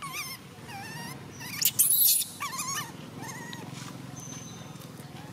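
Infant long-tailed macaque crying: repeated high, wavering calls, with a short loud harsh burst about two seconds in, the cries growing fainter after about three seconds.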